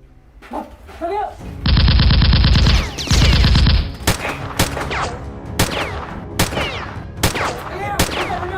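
Gunfire: two bursts of rapid automatic fire, followed by single shots about once a second, each with a short ringing tail.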